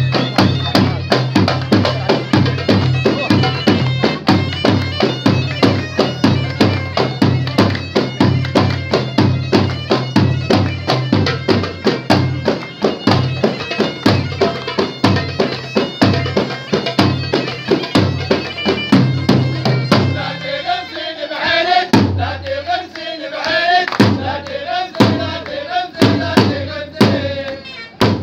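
Bagpipes and drums, a goblet drum, a jingled frame drum and a large bass drum, playing a fast folk tune over a dense drumbeat. About twenty seconds in, the pipes drop out and a group of men chants in unison over the drums.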